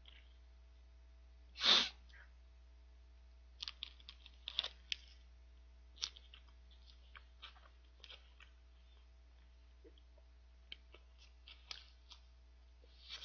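Close-miked mouth sounds of a person chewing a soft four-layer bread sandwich: small wet clicks and smacks scattered through. A single short, loud breath noise comes about two seconds in.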